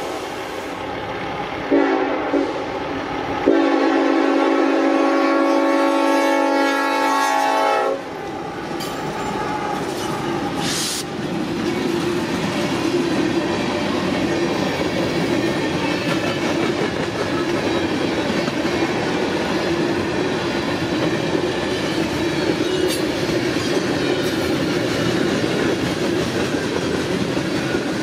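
Norfolk Southern train sounding its horn, with short blasts and then one long blast that stops about eight seconds in. The train then keeps rolling past with a steady rumble of its cars.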